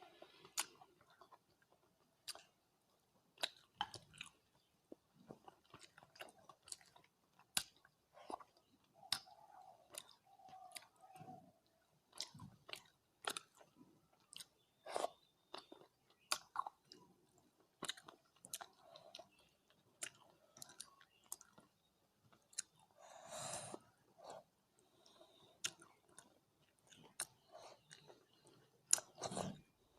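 Close-miked chewing of mouthfuls of rice and curry: wet, smacking mouth clicks at an irregular pace, with a longer noisy burst a little over two-thirds of the way through.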